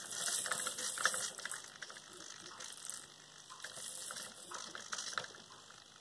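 Hobby servo whirring in short, jerky corrections as it tilts a wooden beam, with a clear plastic ball rattling as it rolls along the wooden channel. Busiest in the first second or so, then in shorter bursts as the ball settles near the centre.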